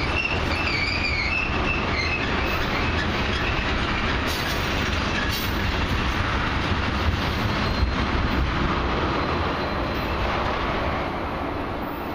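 Tank cars of a slow freight ethanol train rolling past on the rails, a steady rumble with brief high wheel squeals in the first couple of seconds. The sound fades near the end as the last car clears.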